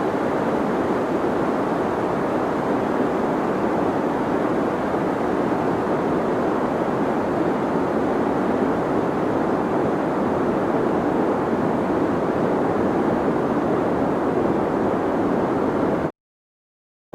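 Deep white noise: a steady, even hiss weighted toward the low and middle range, which cuts out to complete silence for about a second near the end.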